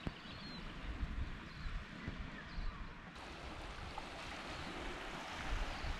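Faint outdoor shore ambience: wind rumbling on the microphone over a soft, steady wash of small waves.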